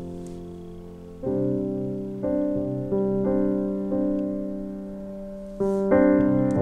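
Background piano music: slow chords struck every second or so, each left to ring and fade.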